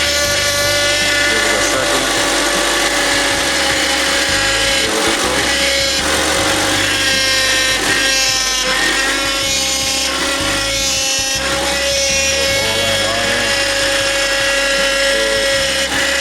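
Honda Accord engine running with its new power steering pump whining: a steady, drill-like tone with higher tones rising and falling above it, while the system still has air in it.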